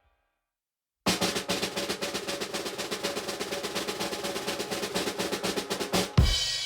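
Drum roll on a snare drum, beginning about a second in with rapid, even strokes for about five seconds, then ending in one loud final hit of bass drum and cymbal that rings on.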